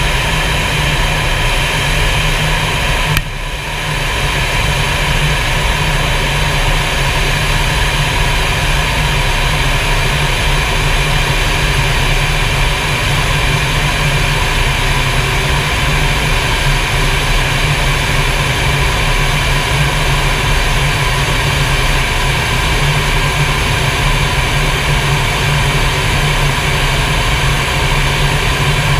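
Steady roar of jet engine and airflow noise inside a fighter jet's cockpit in flight, with a brief dip about three seconds in.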